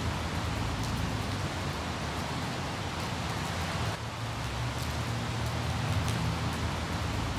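Steady rushing wash of ocean surf with a low hum beneath it, dipping briefly about four seconds in.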